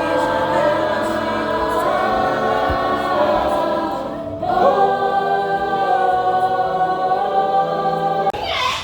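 A group of voices singing together like a choir, holding long sustained chords, with a brief break about four seconds in before the next long held chord.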